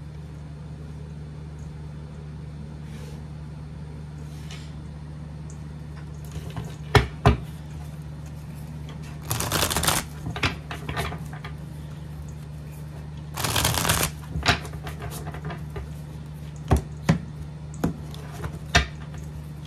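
A deck of cards being shuffled by hand: two riffle shuffles, one about nine and a half seconds in and one about thirteen and a half seconds in, each a brief rapid fluttering of cards. Two sharp clicks come before them, and several sharp taps of the deck on a wooden table come near the end, over a steady low hum.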